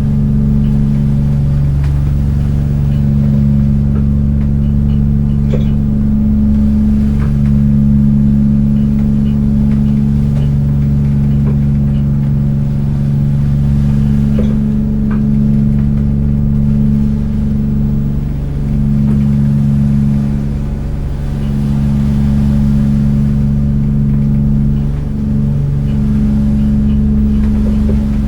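Fishing boat's engine idling steadily while moored, a deep steady drone with a low rumble beneath and faint scattered clicks and rattles.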